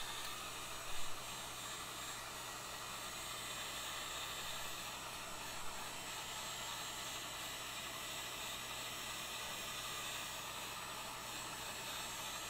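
Heat gun blowing a steady hiss of hot air, softening 3D-printed plastic supports so they can be peeled off.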